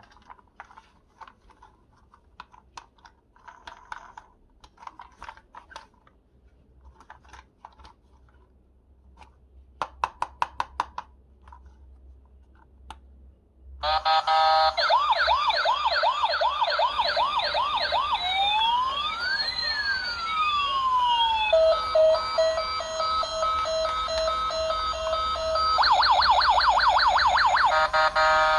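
Toy ambulance minicar's electronic siren, switching on about halfway through and cycling its patterns: a fast warbling yelp, then slow rising and falling wails, then a steady hi-lo two-tone, then the fast yelp again. Before it come faint clicks and handling sounds, with a quick run of clicks about ten seconds in.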